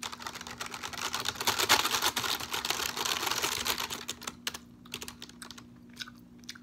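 Typing on a computer keyboard: a fast, dense run of keystrokes for about four seconds, thinning to scattered single taps near the end.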